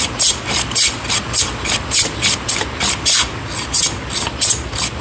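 Hand plane shaving old white oak in quick back-and-forth strokes, a rhythmic scraping cut about two or three times a second, the plane kept on the wood on the return stroke.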